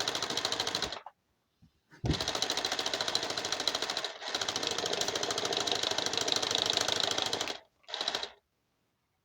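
Car starter cranking the engine in fast, even pulses without it catching: a short crank, a pause, a long crank of several seconds with a brief break partway through, then a last short burst. The engine turns over but won't fire.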